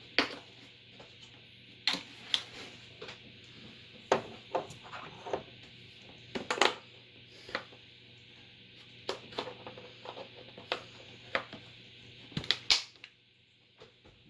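Irregular clicks and knocks of small parts and hands working inside a metal computer case, during a motherboard and standoff fitting, over a faint steady hum.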